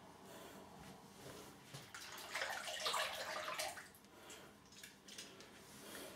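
Water splashing, as from a running tap rinsing a shaving razor or brush, loudest for about two seconds in the middle, with small clicks and knocks around it.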